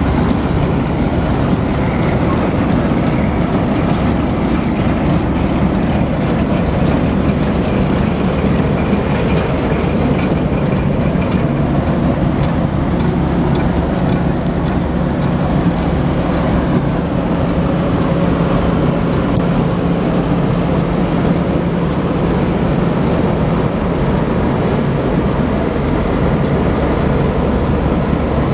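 A 1981 Massey Ferguson 850 combine running steadily, a loud continuous engine and machinery drone.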